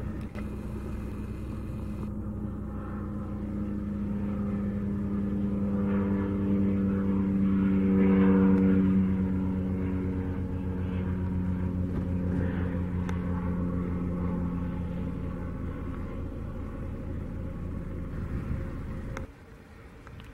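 Propeller drone of a single-engine Cessna 208 Caravan-type plane flying overhead. It grows louder to a peak about eight seconds in, fades away, and cuts off abruptly near the end.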